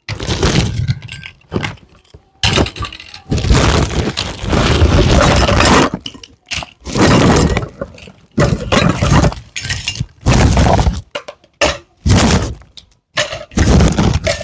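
Small plastic toy pieces and their packaging being unwrapped and handled: a string of crinkling, scraping and clinking bursts with short pauses between.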